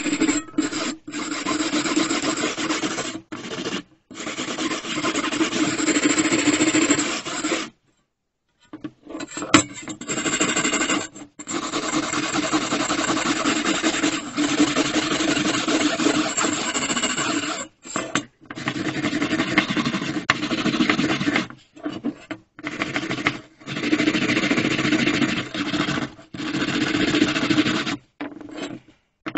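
Abrasive rubbing and filing on the metal of a carpenter's square, in long stretches of several seconds broken by short pauses.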